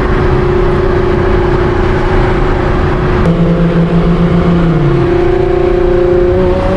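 Tuned twin-turbo V6 of a Nissan R35 GT-R running while driving, a loud steady drone. About three seconds in the sound changes, a lower tone joining and then falling away near five seconds.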